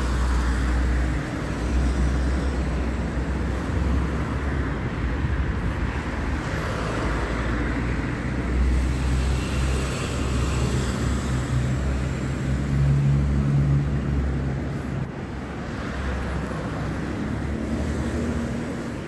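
Street traffic: cars passing by, a steady low rumble with swells of road noise as vehicles go past, and one engine hum growing louder for a couple of seconds about two-thirds of the way through.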